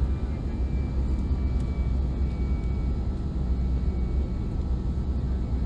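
Cabin noise of an Airbus A320 jet airliner climbing after takeoff, heard from a window seat by the engine: a steady deep rumble of engine and airflow, with a faint high engine whine over it that fades in the first couple of seconds.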